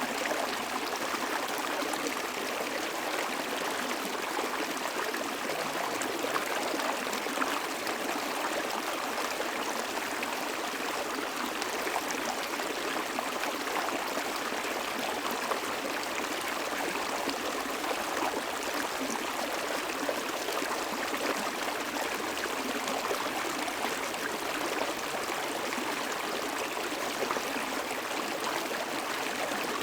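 Small stream flowing steadily, an even rush and trickle of water with little low end and no change in level.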